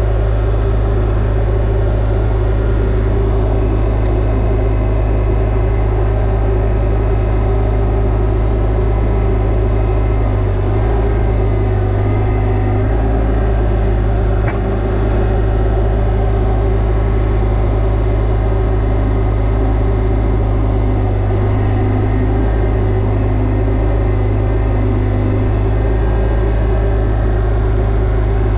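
Steady, loud mechanical hum with a deep drone from a running machine, and a single light click about halfway through.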